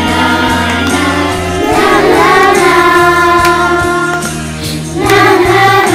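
A children's choir singing a song together over a musical accompaniment, the voices holding long sung notes over steady low notes that change a few times.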